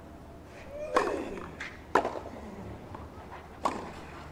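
Tennis racket strings hitting the ball three times: a serve about a second in, the return about a second later, and another shot near the end, each a sharp single pop.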